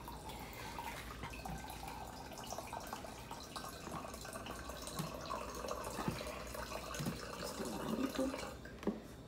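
Quiet kitchen room tone with a few soft taps, about a second apart, as a peeled banana is broken into pieces over a plastic blender jar of dry oats.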